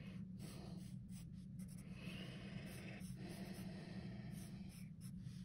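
Sharpie marker drawing quick short strokes on paper, faint, with a longer stroke about two seconds in, over a steady low hum.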